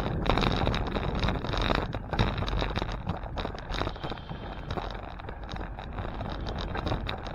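Wind buffeting the microphone while riding a bicycle: a steady rushing rumble with small gusts.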